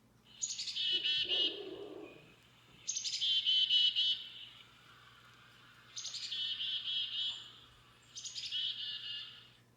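A chickadee's "chick-a-dee-dee-dee" call, a recording played back through the small speaker of a children's bird-sound book. It comes four times, each a quick run of high, rapidly repeated notes with short gaps between.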